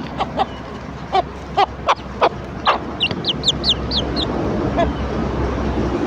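Hen clucking to her chicks, calling them to food: a string of short, sharp clucks, with a quick run of high, downward-sliding chick peeps in the middle.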